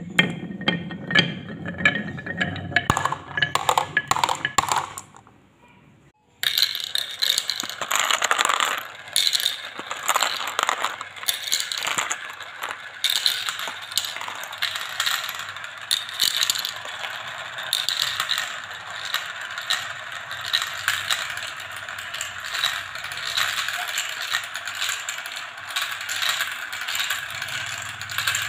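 A marble rolling and knocking down a carved wooden serpentine track, a low rumble with clicks that dies away about five seconds in. After a second of near quiet, many small balls clatter nonstop around clear plastic funnels and down the tubes and chutes of a plastic marble run, a dense rattle of clicks.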